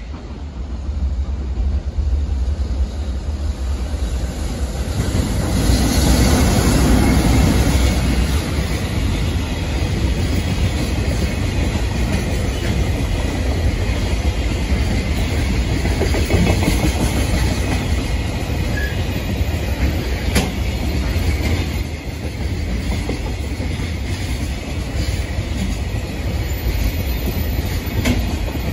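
A JR Freight container train passing close by. The sound builds as the train approaches and is loudest about six to eight seconds in, then holds as a steady rumble and clatter of wagon wheels on the rails while a long string of container wagons rolls past.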